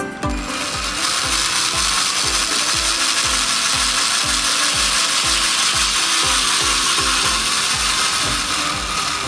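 Cordless drill with a stepped drill bit boring through a plastic jar lid, a steady rasping, grinding hiss as the bit cuts and the hole widens. A regular low beat of background music, about two thumps a second, runs underneath.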